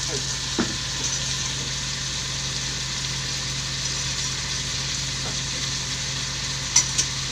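Chicken pieces sizzling in hot oil with sautéed garlic, ginger and onion as they are stirred in a large aluminium pot, with a steady hiss throughout. A metal ladle clinks against the pot about half a second in and twice close together near the end, over a steady low hum.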